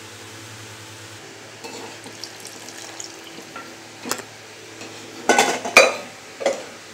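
Steel spoon clinking and scraping in metal pans as cashews and raisins fried in ghee are tipped into the payasam, the hot ghee sizzling as it hits the coconut milk. A steady hum stops about a second in, and the loudest sounds are a few sharp metal clatters near the end.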